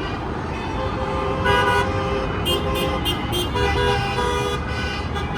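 Many car horns honking at once from a long procession of passing cars: overlapping toots of different pitches starting and stopping, over the steady rumble of traffic.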